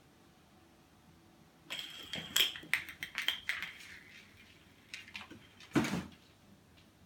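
Bottle cap clattering and skittering across a hard floor as a cat bats at it: a quick run of sharp clicks for about two seconds, then a few lighter taps and a louder thump near the end.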